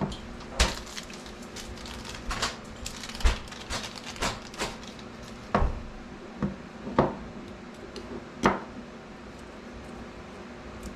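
Small metal parts and tools clicking and tapping on the bench while a tattoo machine's front binding post is shimmed over with coil shims. The clicks are irregular, a dozen or so, with a few louder knocks among them.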